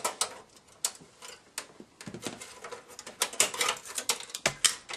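Irregular light clicks and taps of a Phillips screwdriver and screws against a desktop computer's metal case while the expansion-card screws are taken out.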